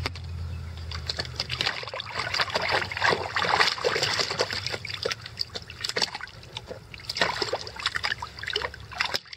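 Icelandic Sheepdog puppies splashing and paddling in the shallow water of a plastic wading pool: a run of small, irregular splashes and trickles.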